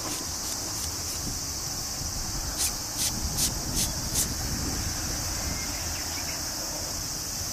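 Insects droning steadily in a high, continuous buzz, with a run of five short, sharp chirps a little under half a second apart about three to four seconds in. A low rumble sits underneath.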